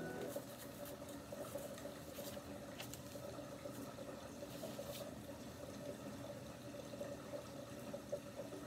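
Faint steady room hum with a few light clicks and rustles from hands handling fabric and small tools. A background music track ends just after the start.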